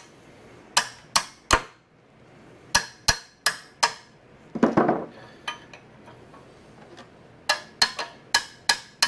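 Hammer blows on steel, sharp and ringing, in three quick runs of about three, four and six strikes, with a rougher clatter about halfway through. The blows are shocking seized fasteners on the old axle hub to break them free.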